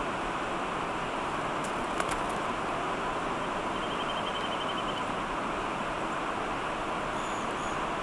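Steady rushing background noise. Over it, faint calls of small birds: a short fast trill of high notes about four seconds in, and thin very high calls near the end. A few faint clicks come about two seconds in.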